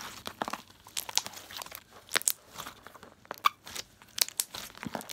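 Slime being squeezed and stretched by hand, giving many irregular crackling clicks and pops.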